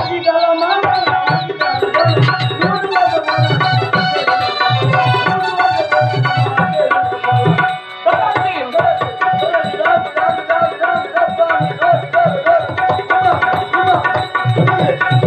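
Live folk-drama dance music: tabla-style hand drums beaten in a steady rhythm under a sustained keyboard-reed melody, with a short break about eight seconds in before it picks up again.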